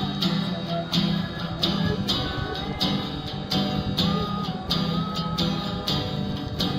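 A song played on a strummed acoustic guitar with a steady beat, the chords struck a little over half a second apart, with a sung melody.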